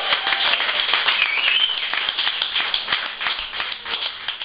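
A small audience clapping and cheering, with a few shouts in the first half, fading away near the end.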